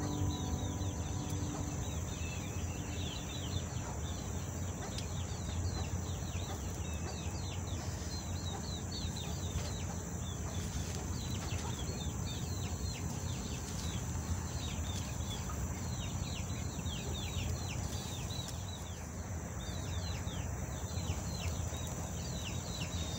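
Birds chirping outdoors: many short, quick chirps that fall in pitch, over a steady high drone and a low rumble.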